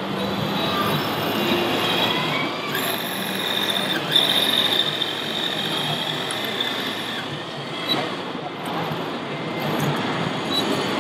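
Radio-controlled scale model of a Hitachi ZW550 wheel loader running over a dirt course. A high whine rises from the model about three seconds in and runs for roughly four seconds, over the steady babble of a busy exhibition hall.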